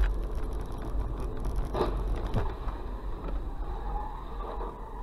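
Steady low rumble of a car driving on a wet road, heard from inside the cabin through a dashcam microphone. A brief sharper sound breaks through a little under two seconds in.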